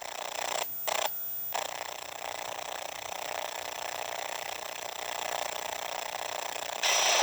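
Steady hiss of VHS tape playback between segments, with two short dropouts about a second in; a louder sound starts just before the end.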